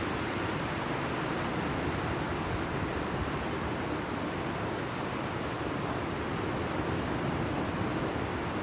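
Steady, even rush of sea surf breaking on the beach, mixed with wind.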